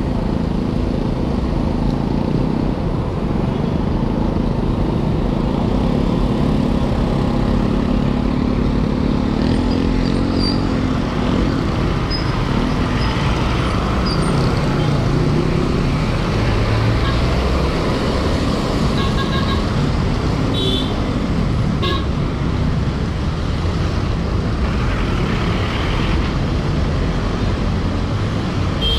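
City street traffic heard from a moving bicycle: a steady low rumble of road and traffic noise with a vehicle engine passing close by, and a few short horn toots about twenty seconds in.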